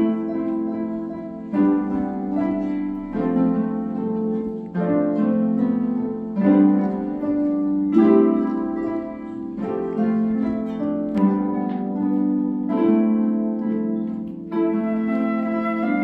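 Ensemble of several harps played together: plucked chords and melody notes ringing on, with a new chord about every second and a half in a slow, even pulse.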